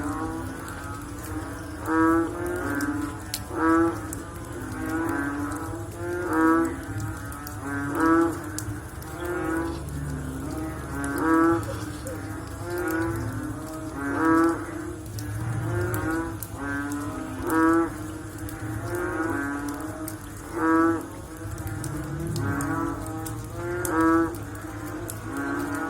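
Frogs calling after rain: short, low calls repeated every second or two, some loud and some fainter, from several frogs over one another.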